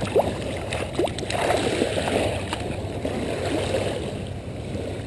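Shallow waves washing over a pebble beach, with water splashing as a landed coho salmon is handled in the wash.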